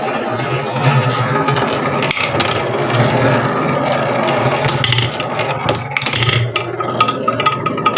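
Marbles rolling and clattering down a wooden marble run: a continuous rolling rumble with frequent sharp clacks as they hit the track pieces.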